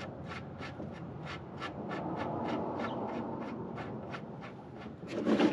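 Scratchy rubbing and handling noise as an oil pan drain plug is unscrewed by hand, over a steady ticking about three times a second. A short louder sound comes near the end.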